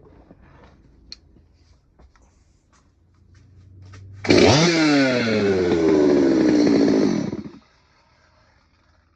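Stihl MS200T two-stroke chainsaw engine firing up and revving, its pitch jumping up sharply and then falling away over about three seconds before it stops abruptly. It is a test run after the ripped intake boot was replaced. Light clicks come before it.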